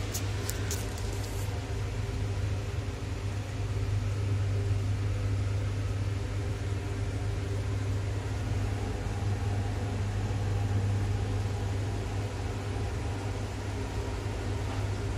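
Steady low mechanical hum, with a few brief clicks in the first second or so.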